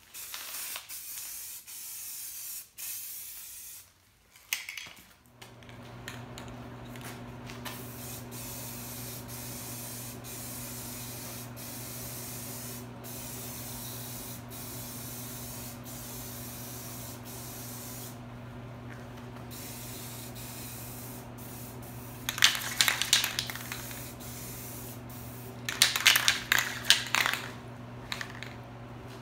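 Aerosol spray paint can hissing in short bursts as parts are painted. From about five seconds in a steady electric hum runs underneath, and the two loudest bursts of spray come near the end.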